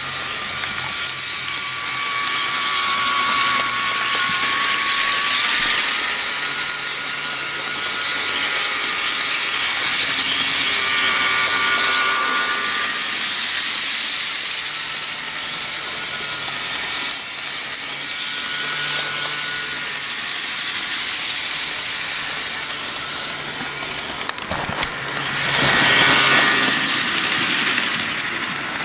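Bachmann HO-scale EMD F7 model locomotive running around the track: its small electric motor and gears whine and buzz steadily, the pitch wavering a little. It gets louder about 25 seconds in as the train passes close.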